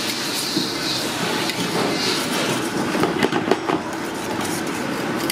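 Wire whisk stirring thick sauce in a stainless steel pot, its wires rattling and scraping against the metal, with a run of sharper clicks about three seconds in over a steady background hiss.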